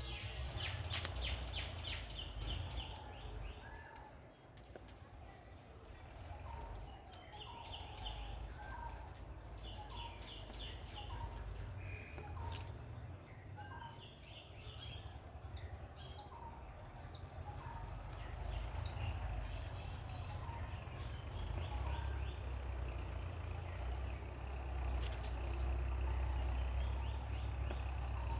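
Outdoor ambience: birds calling with short chirps about once a second and brief trills every couple of seconds, over a steady high insect drone and a low rumble.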